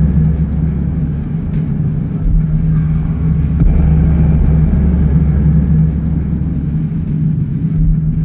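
A steady, loud low drone with a humming tone and a thin high whine held over it, a machine-like rumble with no break.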